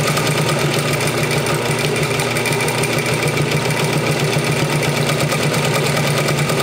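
Singer 241-12 industrial sewing machine, driven by its clutch motor, stitching steadily through thick layers of denim, with a rapid, even run of needle strokes over the motor's hum.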